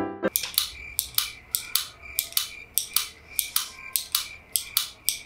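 Retractable ballpoint pen clicked over and over, sharp clicks about three to four a second, often in quick pairs as the button is pressed and released.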